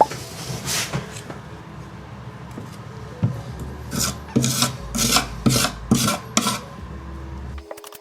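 Scraping strokes across a wooden stair tread while filling screw and nail holes with wood filler: one stroke about a second in, then a quick run of about six strokes.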